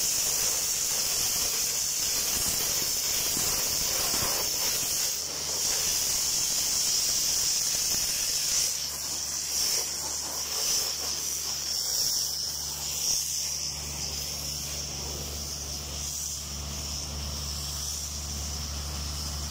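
A sandblasting nozzle hisses steadily as compressed air and abrasive strip zinc coating off steel plates. A low engine hum grows stronger in the second half.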